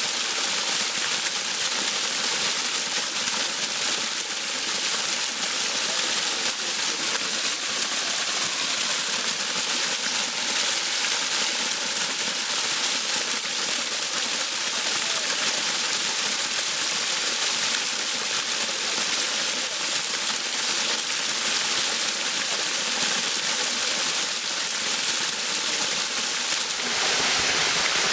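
Small waterfall sheeting down a sandstone rock face into a shallow pool: a steady, unbroken rush and splash of falling water, changing slightly in tone near the end.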